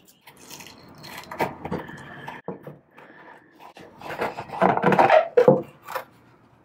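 A velvet-covered divider scraping and knocking against the sides of a jewellery box compartment as it is worked loose and pulled out, in irregular rubs and clicks that grow loudest near the end.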